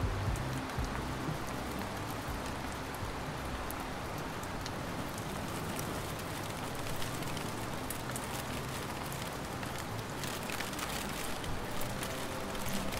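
Steady rain falling, with scattered sharp drop clicks that come more often in the second half.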